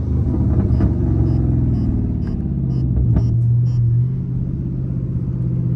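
Catless Dodge Charger Scat Pack's 6.4-litre HEMI V8 exhaust note, low-pitched and steady at light throttle as the car coasts down in speed; the pitch dips slightly about halfway through.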